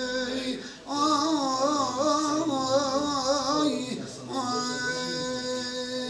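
A man singing an old Turkish folk song solo, without accompaniment, on drawn-out vowels rather than words: a held note, then a wavering ornamented phrase about a second in, then another long held note from about four seconds in.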